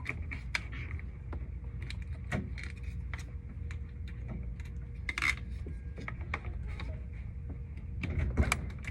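Scattered light clicks and taps at an irregular pace, as small hardware and tools are handled, over a steady low rumble.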